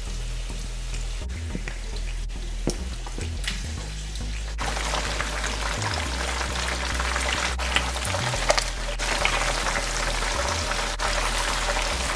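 Chicken pieces frying in a pan of hot oil: a dense, steady sizzle that starts abruptly about four and a half seconds in, as the pieces are turned with tongs. Before it, a quieter stretch with a few light clicks of a spoon against the pan of sauce.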